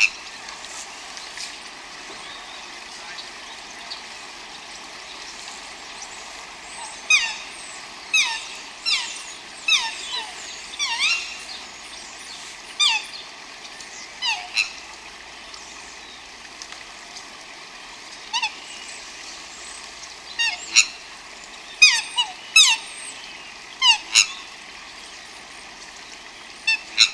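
Geese honking: short calls, each falling in pitch, coming in irregular bursts from about seven seconds in, over a steady background hiss.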